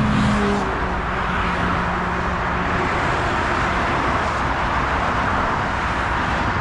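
Dense motorway traffic passing below, a continuous wash of tyre and engine noise. A single vehicle's engine hums steadily through the first few seconds.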